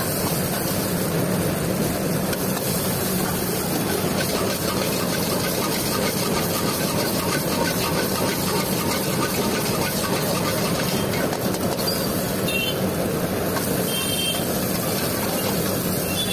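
Noodles stir-frying in a wok over a high gas flame: a steady hiss of sizzling and burner, with the metal ladle clattering against the wok now and then.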